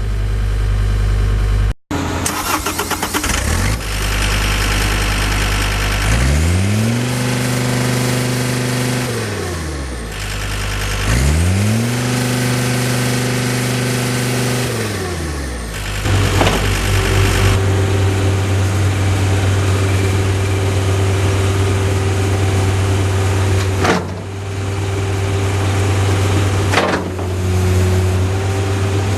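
John Deere 329D compact track loader's diesel engine running, revved up and back down twice, then running steadily, with a few sharp knocks.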